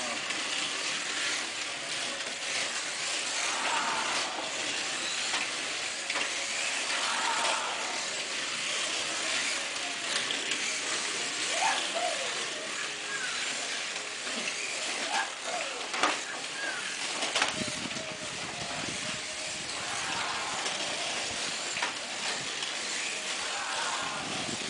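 Slot cars racing round a multi-lane track: a steady whirring and hiss of their small electric motors and guide braids on the rails, with a few sharp clicks and faint background chatter.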